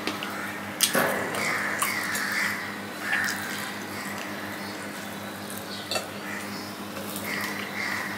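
Fingers mixing rice and cooked greens on a steel plate, with a few sharp clicks against the metal, under a steady electrical hum. Crows caw in the background now and then.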